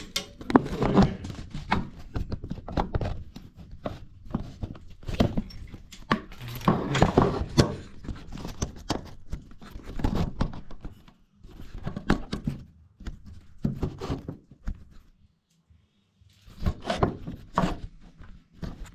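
Irregular knocks, thuds and rustling from someone moving about and handling gear in a cramped crawl space, with a short lull about three-quarters of the way through.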